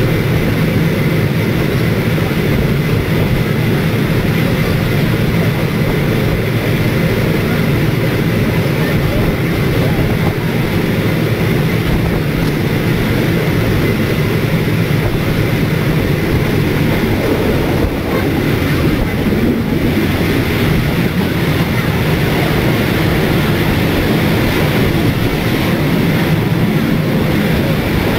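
Heritage passenger train running through an underground station and tunnel, heard from an open window: a loud, steady rumble of wheels on rail with rushing air.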